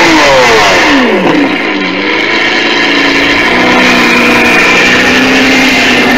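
Vehicle engine, its high note dropping steeply in pitch over the first second and a half, then a lower, steady engine note that slowly climbs.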